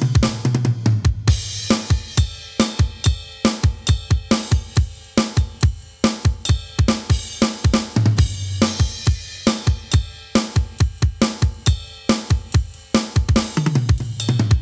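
Aroma TDX-25 electronic drum kit on its 'K6 Metal Live' sound, played in a metal style: fast bass drum strokes under snare, hi-hat and cymbals. Tom fills falling in pitch come at the start, around eight seconds in and near the end.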